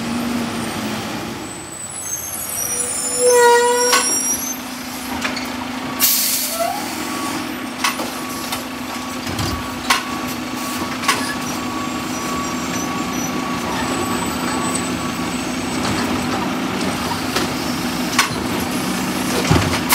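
Mack LR garbage truck with a Heil Rapid Rail automated side-loading arm: a short air-brake squeal as it stops, a loud hiss of air about six seconds in, then a steady engine drone while the arm grabs, lifts and dumps a cart, with scattered knocks and clunks from the cart and arm.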